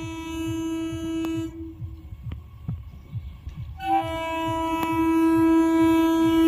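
Electric local train's horn sounding two long, steady blasts: the first stops about a second and a half in, and the second, louder, starts about four seconds in and holds. A low, regular throbbing runs underneath.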